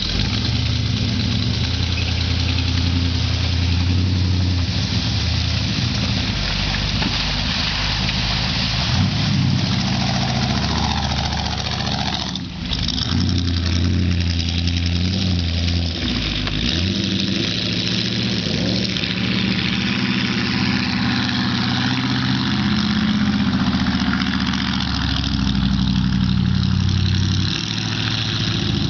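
Engine of a lifted four-wheel-drive Cadillac limousine running and revving as it is driven through mud, its pitch stepping up and down, with a steady hiss alongside.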